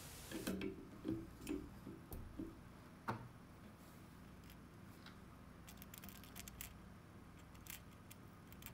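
Faint handling sounds of small tools and parts on a workbench: a run of soft knocks in the first couple of seconds, a sharper click about three seconds in, then scattered light ticks.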